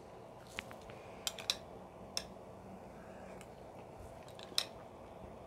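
A few faint, irregular clicks and taps of eating utensils against a bowl of noodle soup, over quiet room tone.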